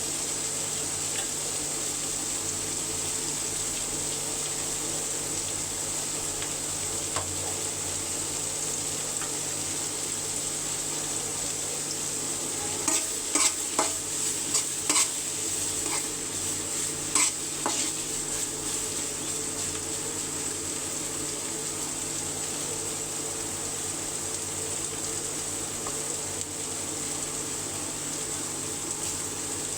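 Food sizzling steadily in hot oil in a cooking pot, with a spoon stirring and clinking against the pot in a run of sharp knocks about halfway through.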